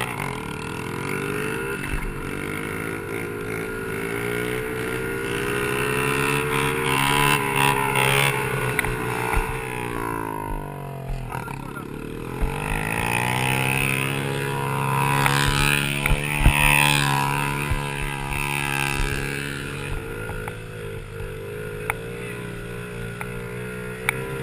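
Small four-stroke single engine of a Honda 50cc pit bike revving up and down as it is ridden, its pitch rising and falling with the throttle and dipping low about halfway through, with a few sharp knocks.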